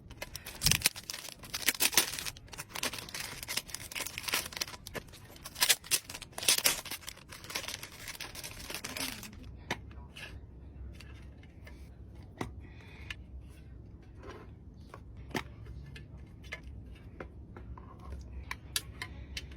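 Packaging being torn open and crinkled, with a dense stretch of tearing and crackling for about nine seconds. It gives way to scattered single clicks and taps of handling.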